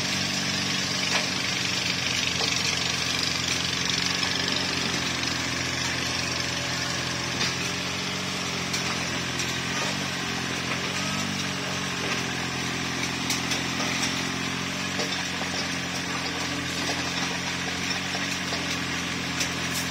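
Mini excavator's diesel engine running steadily, with a constant hiss over it.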